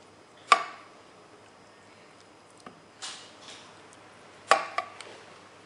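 Metal serving spoon and fork clinking against a porcelain serving dish while a braised fish is cut into portions. There is a sharp clink about half a second in, a softer scrape around three seconds, and two clinks close together near the end.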